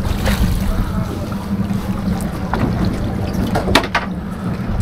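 A fishing boat's engine running steadily with a low hum, with a few sharp knocks, the loudest a little before the end.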